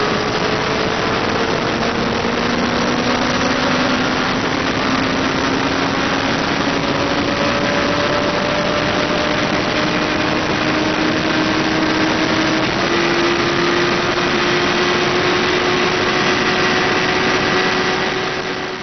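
Inline-four sportbike engine pulling hard in sixth gear on a roll-on, its note rising slowly and steadily as the revs climb, under heavy wind rush.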